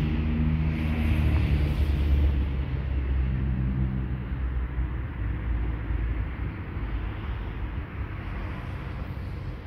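PKP Cargo ET22 electric freight locomotive with its wagons, slow-moving or standing: a low rumble with a humming whine that sinks slightly in pitch and fades out in the first two seconds, while the rumble slowly dies down.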